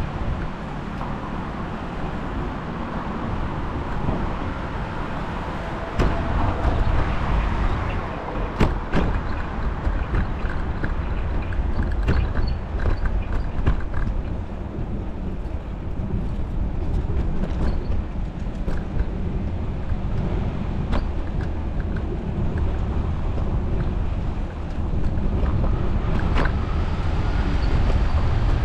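Wind noise and road rumble while riding a bicycle through city traffic, with scattered sharp clicks and rattles.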